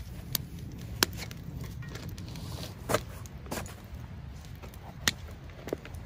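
Wood fire in a campfire pit crackling, with about six sharp pops spaced irregularly over a low steady rumble.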